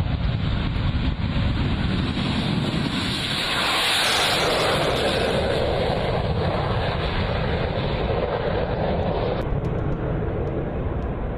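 Sukhoi Su-30MKI fighter jet taking off and climbing away, its twin afterburning turbofans giving a loud, continuous jet roar that swells about four seconds in and then holds steady.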